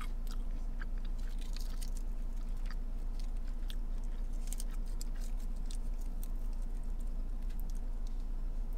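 Chewing of crunchy breaded chicken nuggets, with small scattered clicks and taps of a plastic fork in a ranch dip cup, over a steady low hum.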